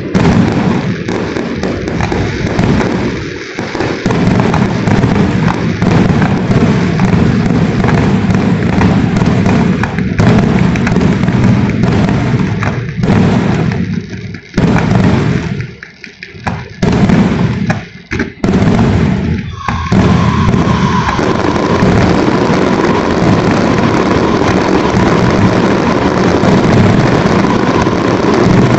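A dense fireworks barrage: continuous bursting and crackling with a few short lulls. About two-thirds of the way through it gives way to a steady rushing noise.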